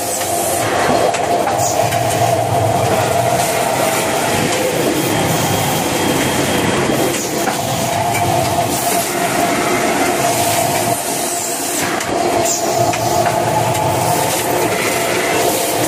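Kitchen towel roll production line running: a steady, loud mechanical clatter from the conveyors and packing machinery, with a few sharp clicks.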